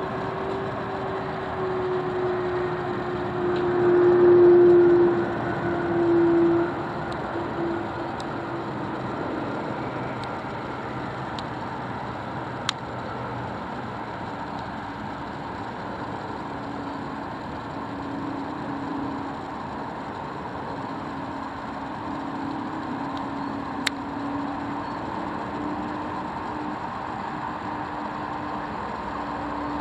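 Boeing 767 airliner's jet engines passing overhead on approach: a broad rumble with a whine that falls in pitch, loudest about four to six seconds in, then a steadier, lower drone as it moves away. Two brief clicks are heard later.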